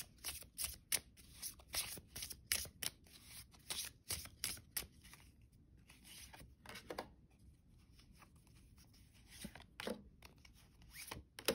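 A deck of oracle cards being shuffled by hand: a quick run of crisp card flicks and snaps, thinning out to a few separate clicks in the second half as cards are drawn off the deck.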